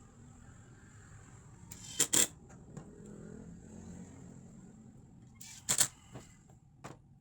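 Wooden shelf parts being handled and fitted together: two sharp double knocks, about two seconds in and again near the six-second mark, with a few lighter clicks between.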